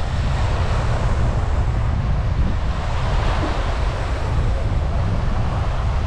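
Wind buffeting the microphone in a steady low rumble, over the rushing wash of small waves breaking on a sandy beach.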